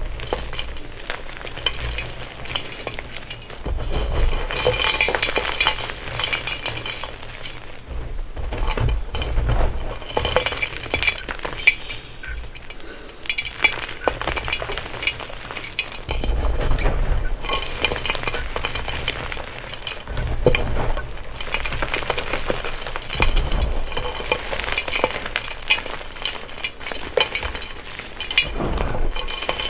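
Gym chalk being crushed and crumbled by hand close to the microphone: a dense, gritty crackle and crunch, with soft low thuds every few seconds.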